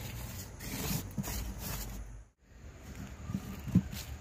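Hand-work on a charcoal briquette mix being packed into a square metal mold on a wooden block: scraping and rustling with a few sharp knocks, the loudest near the end. The sound cuts out briefly about halfway.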